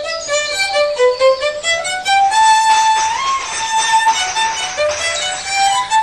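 Violin playing a slow melody as background music. The notes step upward to a long held note in the middle, then move back down.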